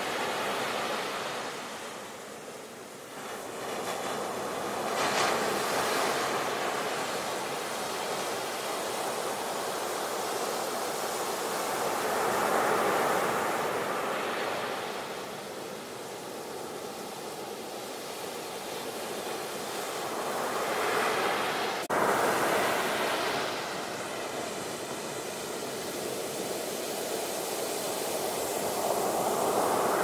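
Sea waves breaking, the surf swelling and fading several times as each wave comes in and washes back. A sharp click about two-thirds of the way through.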